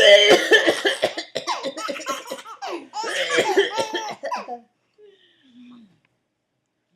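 A man coughing hard in a fit while a baby laughs in bursts, in two runs: about two and a half seconds, then a shorter one about three seconds in. A faint short falling voice sound follows about five seconds in.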